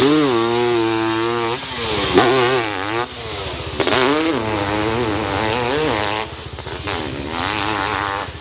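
Motorcycle engine revving hard on a hill-climb run, its pitch rising and dipping again and again as the throttle is worked. It drops somewhat in loudness about six seconds in.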